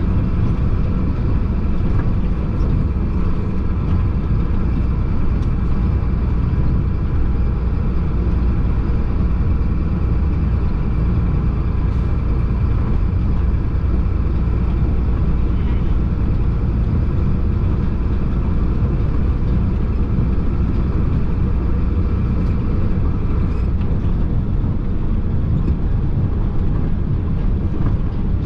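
Chenglong concrete mixer truck driving at a steady pace: a heavy, even engine drone with road noise and a few steady whining tones over it, heard from the cab.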